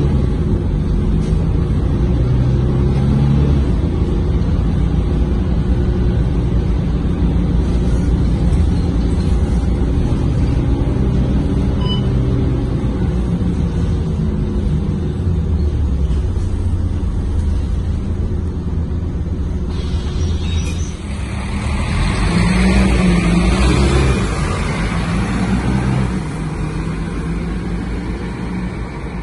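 Mercedes-Benz OC500LE city bus on the move, heard from inside the cabin: steady engine and road noise, its pitch rising and falling. About three-quarters through, the bus is heard from the roadside instead, with a loud hiss lasting about two seconds as it pulls away, then fading.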